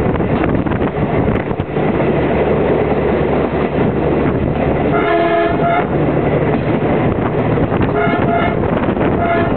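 CP 9630-series diesel railcar running along the track, heard from an open window as a steady rumble of engine and wheels. Its horn sounds once for nearly a second about five seconds in, then gives two short toots near the end.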